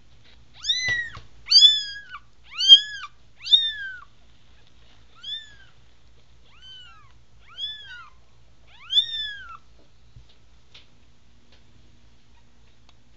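Very young American Bobtail kitten, eyes just opening, mewing after being startled awake. There are eight short, high-pitched mews: four loud ones about a second apart, then four fainter ones spaced more widely.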